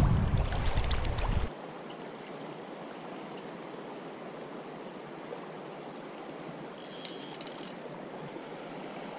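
River current flowing and rippling steadily. Wind buffets the microphone for the first second and a half, then cuts off abruptly, leaving only the even water sound.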